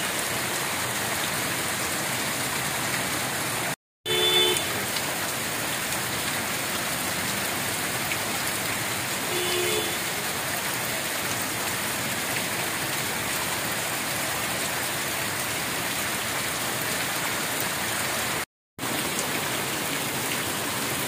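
Heavy rain falling steadily on a street and roadside water, a dense even hiss. A vehicle horn sounds briefly twice, about four seconds in and again about nine and a half seconds in, and the sound drops out to silence for a moment twice.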